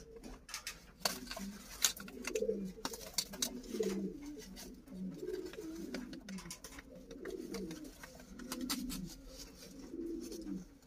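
Domestic pigeons cooing over and over, low warbling calls one after another, with scattered sharp clicks.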